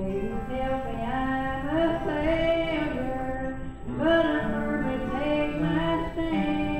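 A woman singing a gospel song in long, held notes over a musical backing.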